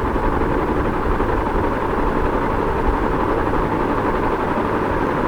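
Ceiling fan running with a steady whooshing hum.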